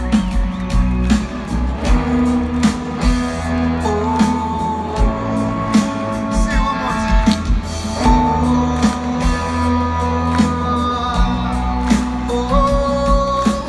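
Rock band playing live in a stadium: sustained electric guitar lines with bends over bass and drums, with voices singing.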